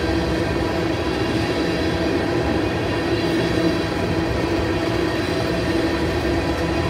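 Empty railroad tank cars of a freight train rolling past, a steady, unbroken noise of wheels running on rail.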